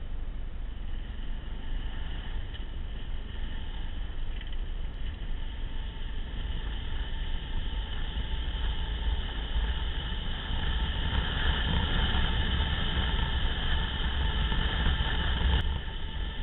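Off-road vehicle engine running at speed over a dirt track, with a heavy low wind rumble on the open-air camera. It grows louder about two-thirds of the way in, then drops suddenly near the end.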